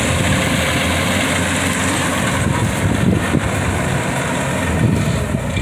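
Kubota DC-105X rice combine harvester's diesel engine running steadily, with a few brief knocks about three seconds in.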